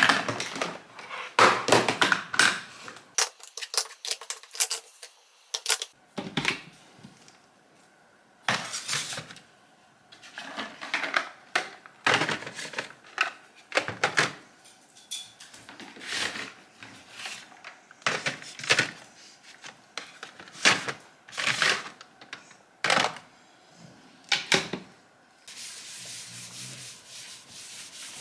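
Small makeup items and containers clicking and knocking as they are set down into storage trays and the trays are moved about, a rapid cluster at first and then a knock every second or two. Near the end, a cloth rubbing steadily across a desktop.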